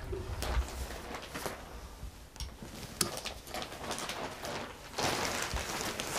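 Light knocks and clicks as things are handled and moved on wooden workshop shelves, then a steadier rustling from about five seconds in.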